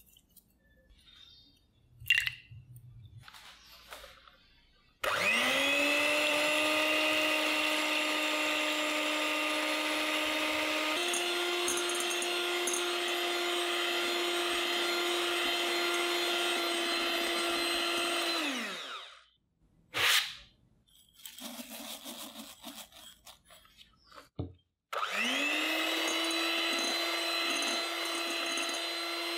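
Electric hand mixer whipping egg whites in a glass bowl: a steady motor whine with the beaters whirring. It steps up to a higher speed partway through, stops, and starts again near the end.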